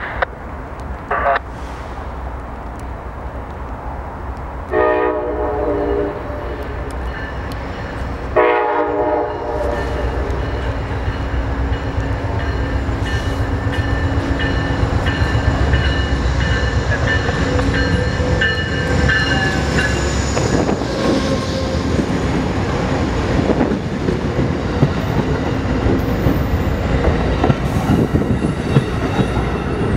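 Amtrak passenger train sounding its horn twice, about five and eight seconds in, then drawing near and passing with a growing clickety-clack of wheels over the rail joints.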